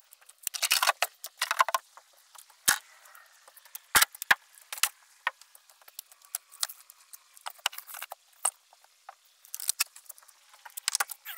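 Handling noise: scattered light clicks and metallic clinks with rustling, thickest about a second in and again near the end.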